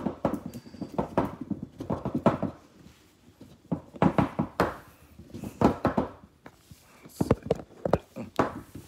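Cardboard box being handled close to the microphone and worked open with one hand: a string of irregular knocks, thumps and scrapes.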